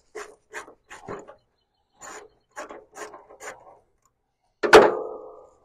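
3/8-inch socket ratchet with an extension clicking in short, quick strokes as it backs out a belt-cover bolt on a mower deck, in two runs with a short pause between. Near the end comes one sharp metallic clank that rings briefly.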